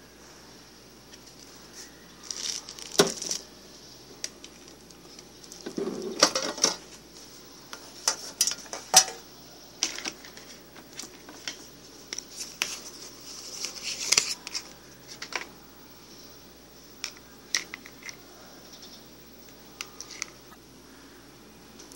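Irregular clicks, knocks and clattering, with a longer rattling clatter about six seconds in, over a faint steady hiss.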